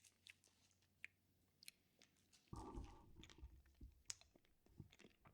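Faint mouth sounds of a cough drop being sucked: small scattered clicks as the lozenge knocks against the teeth, with one louder low thump about two and a half seconds in.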